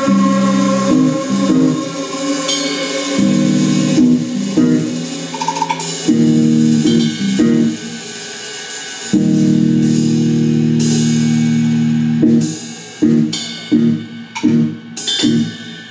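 Live rock band, electric guitars over a drum kit, playing long held chords. Then, in the last few seconds, comes a run of short stop-hits with cymbal crashes, leaving gaps between them.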